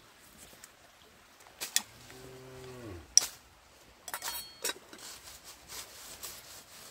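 A cow mooing once, about a second long, steady in pitch and dropping at the end. Several sharp clicks and knocks come around it, the loudest just after the call.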